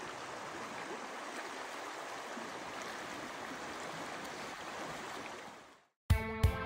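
Mountain river flowing over rocks: a steady rush of water that fades out a little before the end. Guitar music starts suddenly right at the end.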